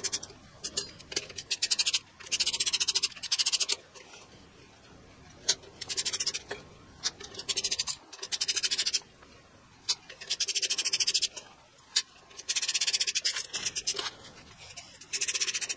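Hand ratchet with a Torx T25 bit clicking in repeated bursts of rapid ticks, each about a second long, as the bolts holding the stock front brake rotor are backed out. A few single sharp clicks fall between the bursts.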